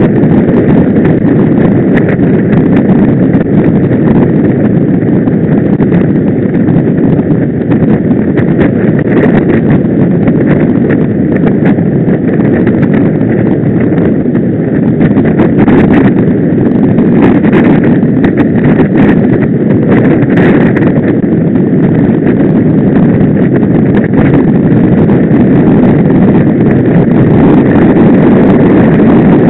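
Wind rushing over the microphone of a camera on a moving road bike: a loud, steady rumble, with a few faint clicks and knocks around the middle.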